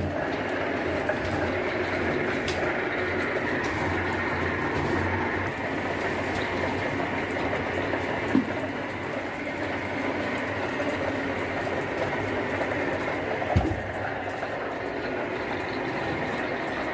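Borewell drilling rig's tractor engine running steadily, driving the cable-winch drums that hoist the bore pipe. Two short knocks, one about eight seconds in and one about thirteen seconds in.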